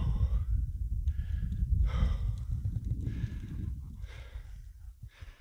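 A man breathing hard after climbing uphill with a heavy backpack, catching his breath in loud breaths about once a second over a low rumble.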